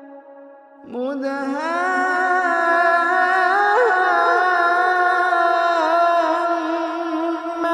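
A male qari's voice in melodic Quran recitation, stretching a single syllable into one long chanted note. About a second in the voice comes in again, slides up in pitch and then holds with small wavering turns until just before the end.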